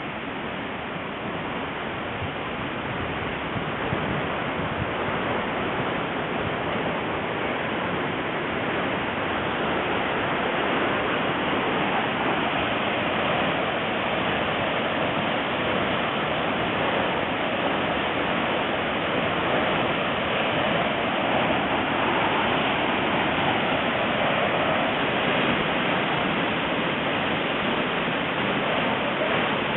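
Waterfall: a steady rush of falling water, growing louder over the first ten seconds or so, then holding even.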